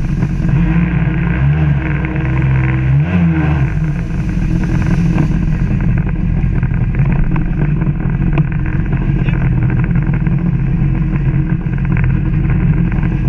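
1996 Sea-Doo GSX's Rotax 787 two-stroke twin running at speed, with water and spray hissing against the hull. The engine note dips and rises twice in quick succession about two to three and a half seconds in, then holds steady.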